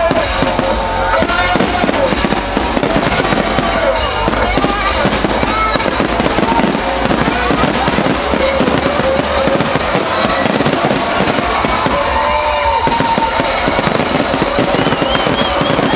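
Fireworks display finale: a dense, unbroken barrage of shell bursts and crackling stars, bang after bang with no pause.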